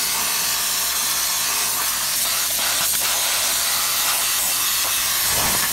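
Compressed-air undercoating spray gun hissing steadily as it sprays rust-proofing oil through its nozzle down the inner seam of a car door.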